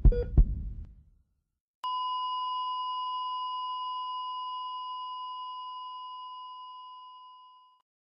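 A heartbeat's low double thump, then about two seconds in a heart monitor's continuous flatline tone starts, holds one pitch and slowly fades out: the sign that the heart has stopped.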